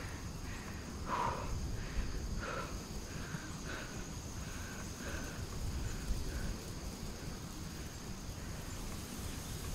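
Wind rumbling on the microphone over a steady, high-pitched insect drone. A bird gives a string of short calls about once or twice a second during the first two-thirds.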